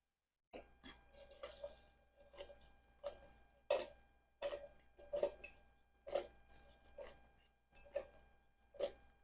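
Roasted Brussels sprouts and carrots being tossed with balsamic glaze in a bowl: a utensil scrapes and knocks through the vegetables against the bowl in a steady rhythm, about one stroke every two-thirds of a second, starting half a second in.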